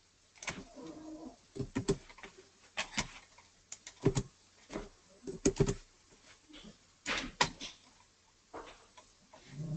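Computer keyboard keystrokes and mouse clicks: irregular clusters of short taps while text is typed into a form field and saved.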